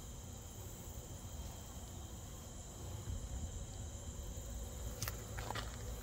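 Crickets and other night insects chirring steadily as several even, high tones over a low background rumble, with a couple of faint clicks near the end.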